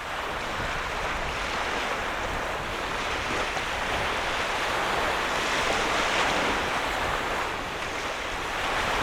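Steady rush of strong wind with waves washing on a lakeshore, with no breaks or distinct events.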